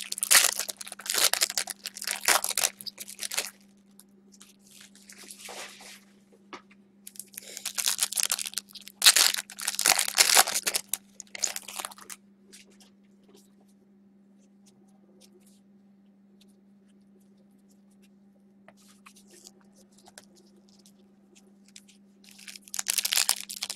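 Football trading card pack wrappers being torn open and crinkled, in several bursts of handling with a quiet stretch of several seconds in the middle.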